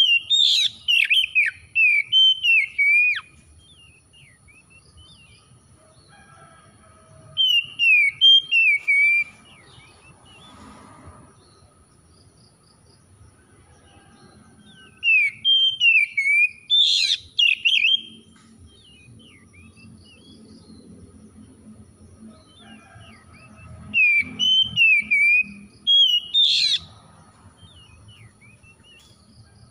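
Oriental magpie-robin singing: four bursts of loud, varied whistled phrases, each a few seconds long, with gaps of several seconds between them.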